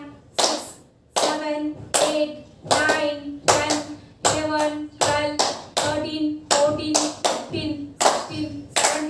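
Hands clapping in a steady rhythm, about one clap every three-quarters of a second, each clap joined by a short laughing "ha" from voices, as in laughter-yoga clapping. There is a brief pause just before the first second.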